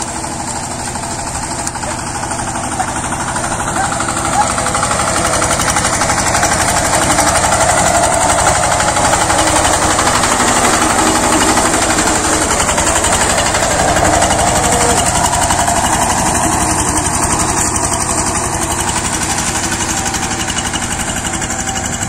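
Two-wheel walk-behind power tiller's single-cylinder diesel engine running steadily under load as it ploughs wet paddy mud. It grows louder a few seconds in and eases slightly near the end.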